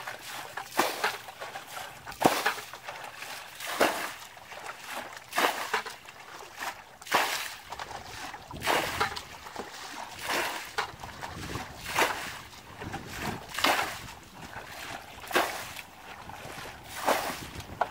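Muddy water being bailed out of a shallow pool with a bucket: a scoop and a splash as each load is thrown out, about once every second and a half.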